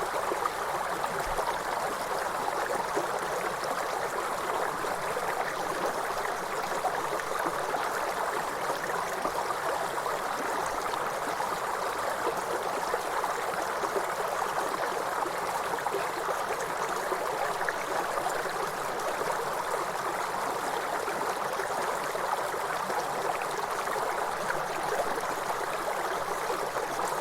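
River water flowing steadily, a continuous babbling rush with no breaks.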